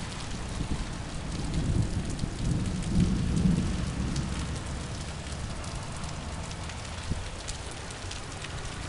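Steady rain falling, with a low rumble that swells and fades about two to four seconds in.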